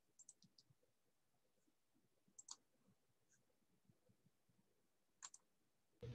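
Near silence broken by three faint double clicks of a computer mouse, about two and a half seconds apart.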